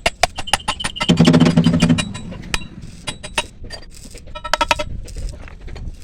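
A run of sharp metallic clinks and knocks, like metal parts or tools being handled. There is a louder, denser clatter about a second in and a quick cluster of ringing clinks near the end.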